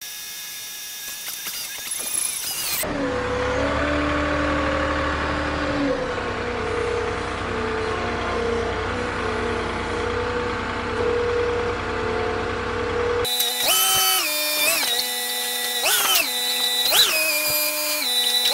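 Moffett M8 truck-mounted forklift's engine running steadily, then revving up and down about five times in quick succession in the last few seconds as the machine is worked.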